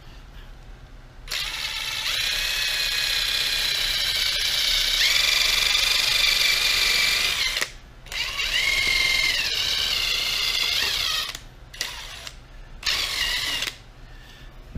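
Ridgid cordless drill spinning a polishing pad to buff a plastic gauge-cluster lens: a steady motor whine in two long runs of about six and three seconds, its pitch shifting during the second run, then two short bursts near the end.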